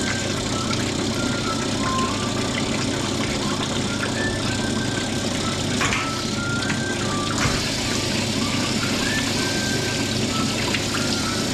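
Cylinder honing machine running, its honing stones stroked up and down the bore of a motorcycle cylinder barrel with almost no pressure in a light final finishing pass under honing oil. Steady machine noise, with a couple of short knocks about six and seven and a half seconds in.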